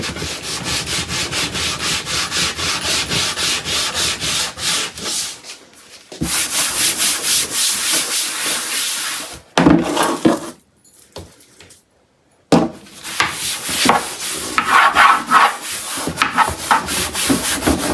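A handheld scrub brush with a scouring pad is scrubbing the bottom of a kitchen drawer in quick back-and-forth strokes to scour off grime and stains. The scrubbing stops for about two seconds a little past halfway, then starts again.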